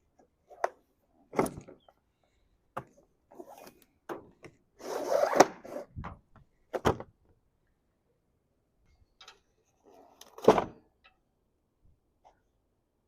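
Irregular handling noises: a series of knocks and thumps from parts and packaging being moved, with a longer scraping rustle about five seconds in and the loudest thump about ten and a half seconds in.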